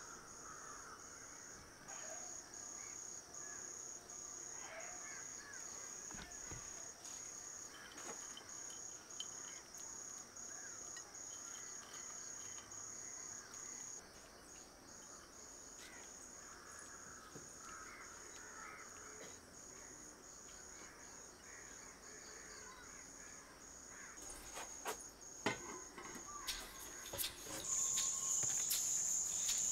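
Crickets chirping in a high, even pulsing trill, a little under two pulses a second, running steadily and growing louder near the end. A few faint clicks and knocks come in the last few seconds.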